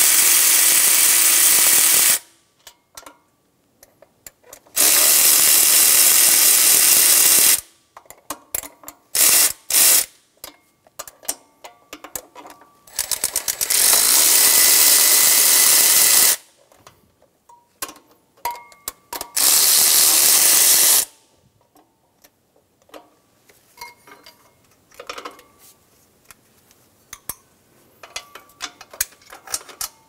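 Cordless ratchet on a socket extension running in four bursts of two to three seconds each, spinning out the Tundra's 12 mm intake manifold nuts and bolts. Between the bursts come short metallic clicks and clinks as the loosened hardware is handled.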